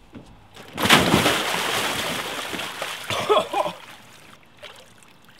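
A person dropping into a tarp-lined pickup truck bed full of ice water: a big splash about a second in, then water sloshing and settling for a couple of seconds. A few short vocal cries follow about three seconds in.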